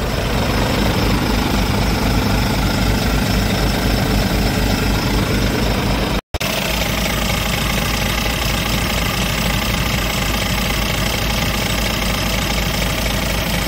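Scania R450 truck's 13-litre straight-six diesel idling steadily, with a brief break in the sound about six seconds in.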